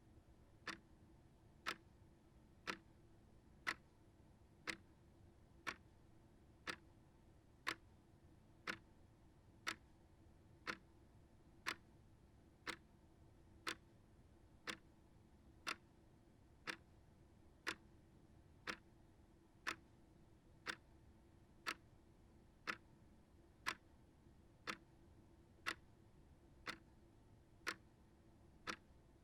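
Small shelf clock ticking steadily, about one tick a second.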